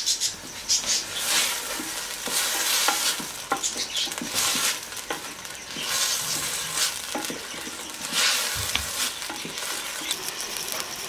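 Diced nopales with tomatillo frying in a little hot oil in a clay cazuela. They sizzle in swells as a wooden spoon stirs them, with light knocks of the spoon against the pot.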